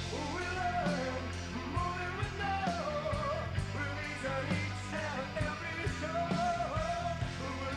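Rock music with a male vocal, guitar, bass and drums, laid over the video as its soundtrack.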